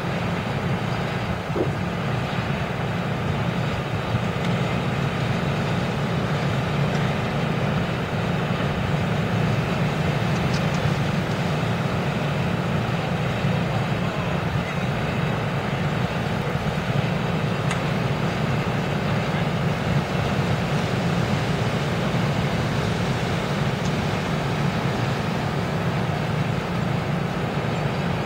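A motor vehicle's engine running steadily, a constant low rumble that does not change.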